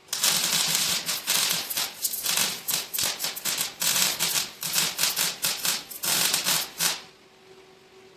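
Wire-feed welding arc crackling and sizzling on the truck's steel frame, in a run of short stutters with brief breaks. It starts sharply and cuts off about seven seconds in.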